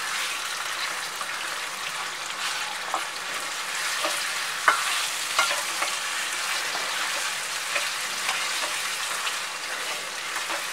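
Marinated chicken pieces sizzling in hot oil with fried onions in a kadhai, being stirred and turned with a spatula; a steady frying hiss with scattered clicks of the spatula against the pan, the sharpest about halfway through. This is the bhuno stage, where the chicken is fried until its water dries off.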